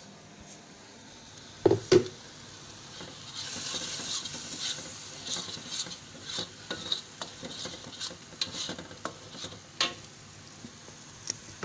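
Two sharp knocks near two seconds in, then blended dried-chilli spice paste frying in a wok, sizzling and crackling as it is stirred, from about three seconds in.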